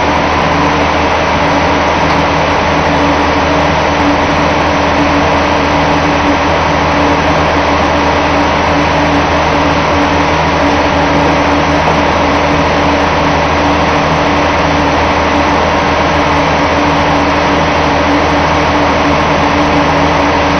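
Engine aboard a fishing boat running steadily at an unchanging speed, a constant low hum with a loud mechanical drone over it.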